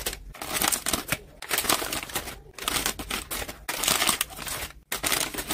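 Plastic snack packaging crinkling and rustling in irregular bursts as bags and packs of snacks are handled and emptied.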